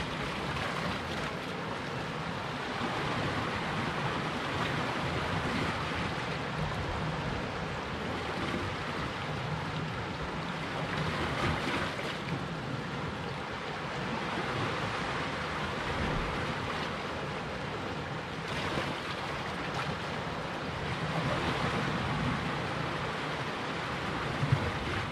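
Sea surf washing and breaking against the rocks, a steady noisy wash that swells and eases every several seconds. A short knock sounds near the end.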